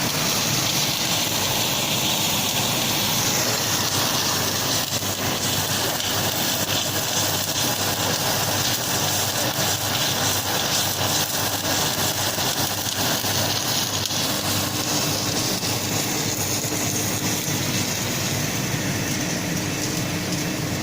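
H-beam assembly, welding and straightening machine running: a steady mechanical noise with a crackling hiss that holds at an even level throughout.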